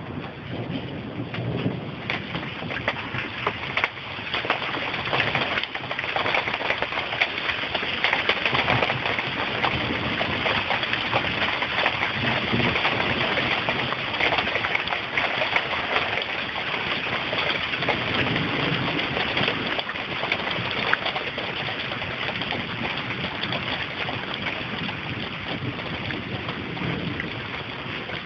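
Heavy thunderstorm rain falling, a dense hiss of many sharp drop impacts that grows heavier for a while and then eases slightly.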